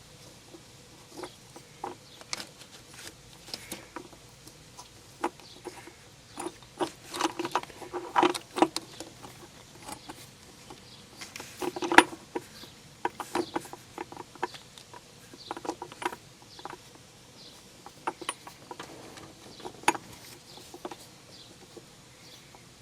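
Hand tools clinking and tapping on metal: a wrench and socket being fitted onto the injector pressure regulator. The knocks are short and irregular, with the loudest strike about halfway through.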